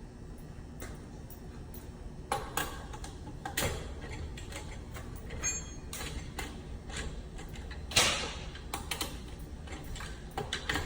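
Scattered clicks and knocks of hand tools working on metal electrical-panel lugs, with a brief high metallic ping in the middle and the loudest knock about eight seconds in.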